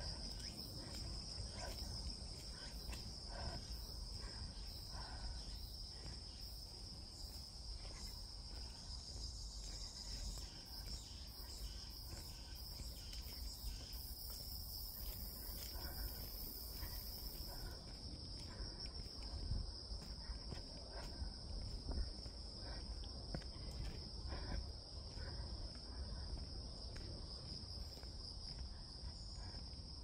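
Insects singing in a steady chorus, one unbroken high-pitched buzz with a low rumble beneath it.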